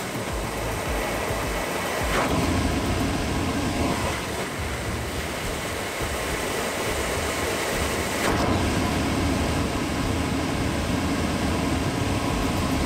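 AMANO inverter dust collector with HEPA filter running at 60 Hz, its fan drawing air through the intake with a steady rushing hum while a hand partly covers the intake port. The level swells slightly about two seconds in and again about eight seconds in.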